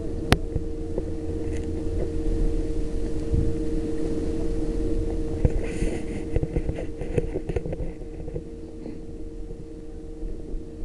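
Wind rumbling on the microphone over a steady low hum, with scattered clicks and crunches of handling and footsteps in snow; a burst of denser crunching about six seconds in.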